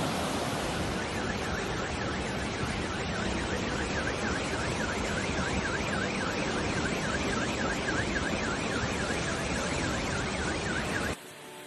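Floodwater torrent rushing loudly down a street. From about a second in, a car alarm warbles over it at about three rising-and-falling whoops a second. Both cut off abruptly near the end.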